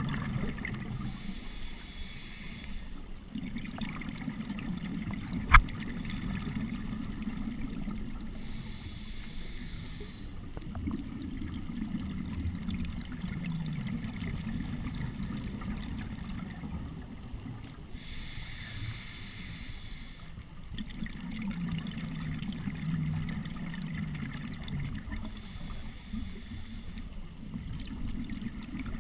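Scuba diver's regulator breathing heard underwater: four hissing, bubbling breaths roughly seven to eight seconds apart over a low, muffled rumble. One sharp knock about five and a half seconds in.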